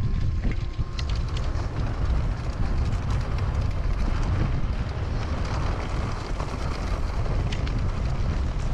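Wind buffeting the microphone during a fast downhill mountain-bike descent, a steady low rumble, with a few sharp clicks of the bike rattling over the trail.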